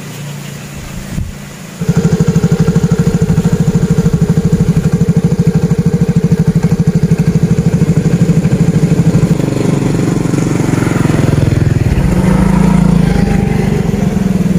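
A motor engine running with a fast, even pulse. It cuts in abruptly about two seconds in, shifts in tone near the end and stops suddenly.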